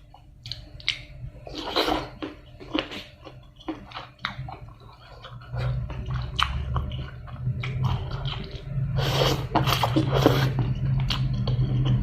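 A person chewing and eating seafood salad close to the microphone, with irregular wet smacks and small crunches. A low steady hum comes in about halfway through.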